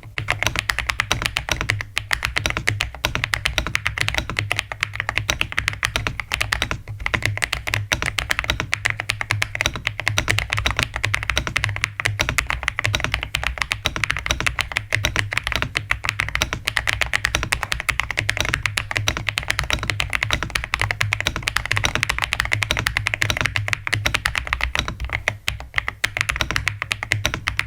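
Mechanical keyboard typed on fast and continuously, keys clacking in a dense stream: a sound test of newly fitted keycaps.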